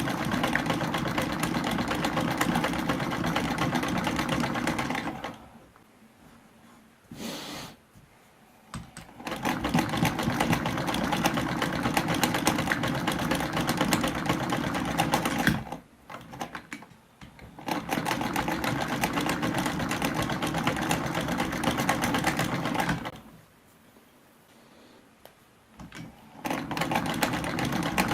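Sewing machine stitching at a fast, even rate in runs of several seconds. It stops three times, for about two to four seconds each time, with a brief start during two of the pauses.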